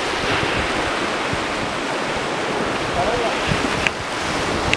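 Waves breaking and washing over shoreline rocks, a steady rushing, with wind buffeting the microphone.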